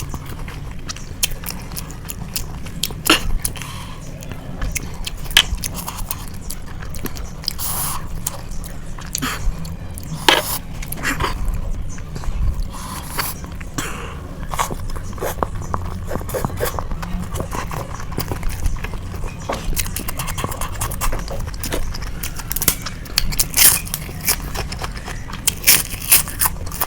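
Close-miked eating of noodles: chewing and wet mouth sounds with frequent short, sharp clicks, several louder ones near the end.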